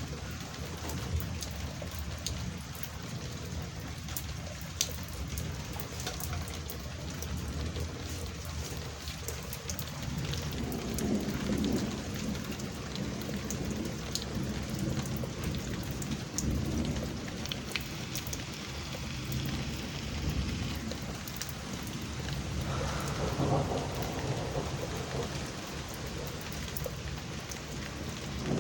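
Steady rain falling during a thunderstorm, with scattered drops ticking on nearby surfaces. Thunder rumbles twice, about a third of the way in and again near the two-thirds mark.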